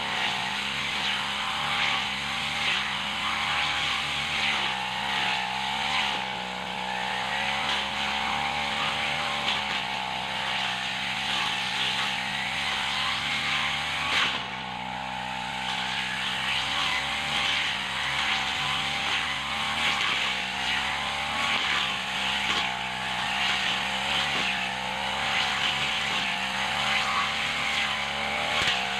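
Backpack brush cutter's small engine running at high revs while it cuts grass and weeds, a steady whine that dips briefly about halfway through.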